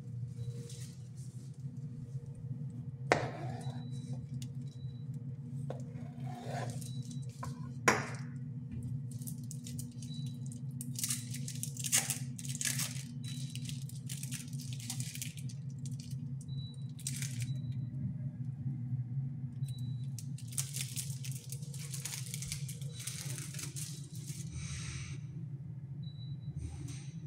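Steady low hum of a Ninja dual-basket air fryer running, with two sharp knocks about 3 and 8 seconds in. Irregular bursts of crinkling and rustling as plastic packaging and gloved hands handle lettuce and food.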